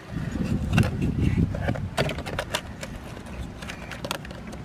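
Scattered light clicks and taps of the detached steering wheel's plastic and metal parts being handled, over a low rumble.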